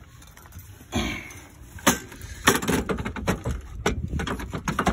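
Irregular clicks and knocks with rustling as hands handle the ATV winch mount. There is a sharp knock about two seconds in and a denser cluster of clicks and knocks through the second half.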